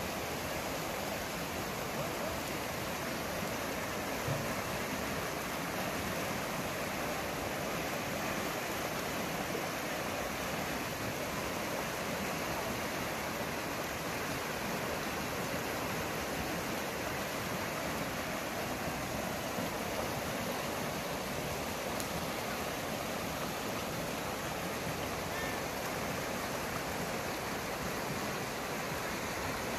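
A steady, even rushing noise that holds constant throughout, with a faint tap about four seconds in.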